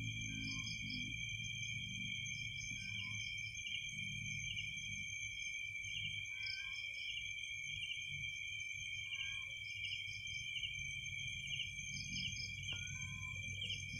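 Night insect chorus: several crickets trilling steadily at high pitch, with a chirp repeating about twice a second, over a low background rumble.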